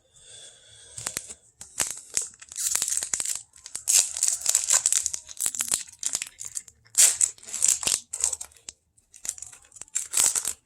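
A trading-card pack's foil wrapper being torn open and crinkled, a rapid run of short crackling rustles with a few sharp clicks.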